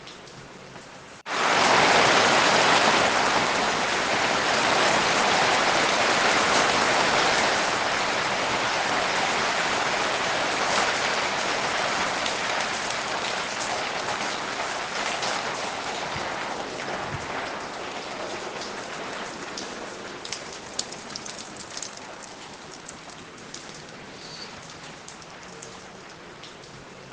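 Rain falling, an even hiss of many drops. A little over a second in it jumps suddenly louder, then slowly eases off, with single drips standing out toward the end.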